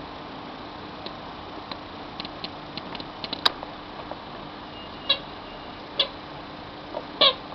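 Scattered light clicks and taps, then three short high-pitched squeaks from a Yorkshire terrier puppy, the last the loudest, over a steady low hiss.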